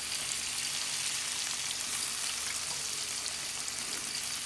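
Tempeh slices frying in hot oil in a wok: a steady sizzle.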